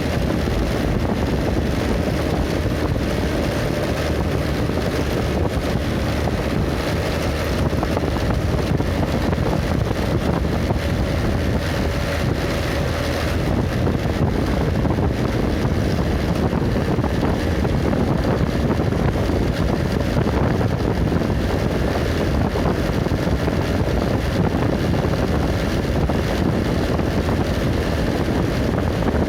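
Wind buffeting the microphone over steady road and engine noise from a moving vehicle.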